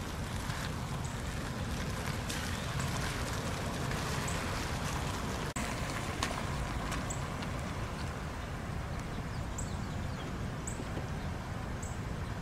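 Outdoor ambience: a steady low rumble and hiss, with a few short, high chirps now and then.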